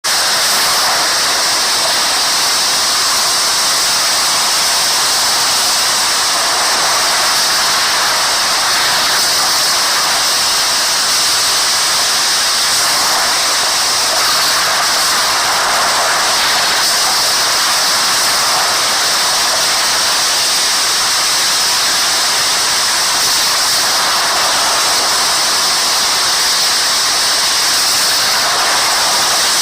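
Heavy rain falling, a loud, steady hiss that does not let up.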